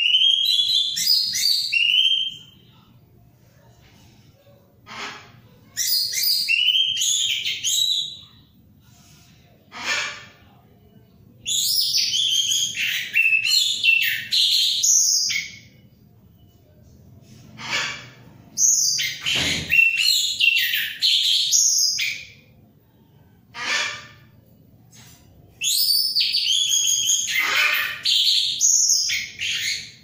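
Caged orange-headed thrush in full song: five loud, varied, high-pitched phrases of two to four seconds each, separated by pauses, with single short notes in between.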